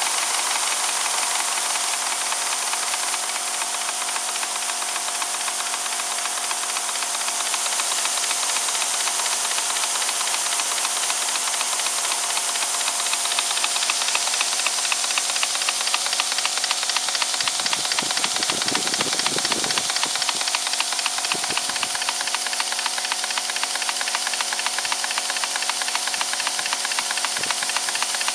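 Model twin-cylinder steam engine running steadily, its exhaust a continuous hiss broken into fast, even chuffs. A brief low rumble comes in about two-thirds of the way through.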